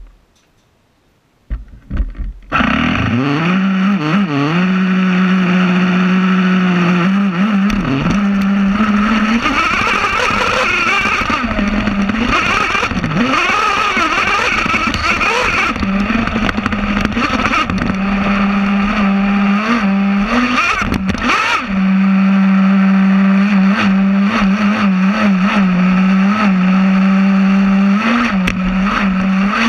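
Traxxas Slayer Pro's small TRX 3.3 nitro engine, heard from on board, catching after a couple of short sputters about two seconds in and then running loudly. Its pitch holds steady for stretches and rises and falls with the throttle as the truck drives.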